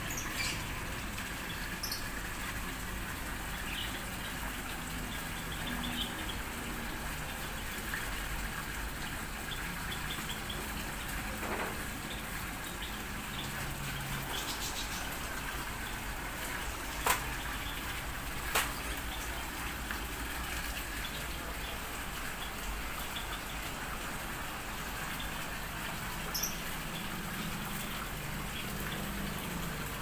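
Aviary ambience: a steady rush of water with a few faint, short bird chirps. Two sharp clicks about a second and a half apart just after the middle are the loudest sounds.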